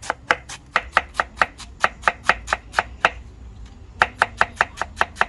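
Nakiri vegetable knife shredding young cabbage on a wooden cutting board: quick, even chops, about four or five a second, pausing for about a second partway through before resuming.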